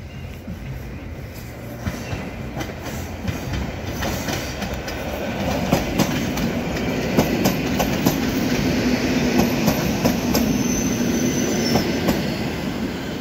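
EN57 electric multiple unit approaching and passing close by, its wheels clicking rhythmically over rail joints and growing louder as it comes near. A faint high-pitched tone comes in near the end.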